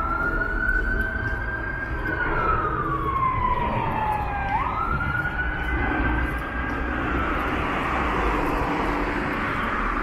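Emergency-vehicle siren wailing, its pitch sliding slowly up for about two seconds, down for two and a half, then jumping sharply back up about halfway through and sliding up again before it fades, over steady road-traffic noise.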